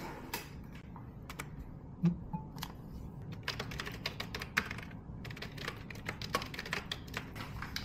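Typing on a computer keyboard covered in plastic film: scattered key clicks, sparse at first with one louder knock about two seconds in, then quicker runs of keystrokes.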